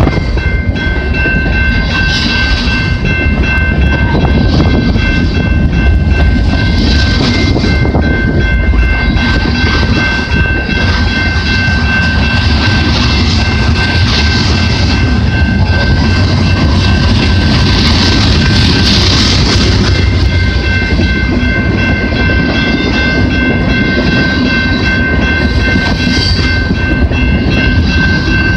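Freight cars of a long CP mixed freight train rolling past close by, with wheels clattering over rail joints and a continuous rumble. Steady high-pitched ringing tones run over it, and a hiss swells and fades as each car goes by.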